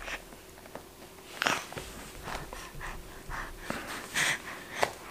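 A baby's soft breathing and snuffles, a few short sounds with faint rustling between them.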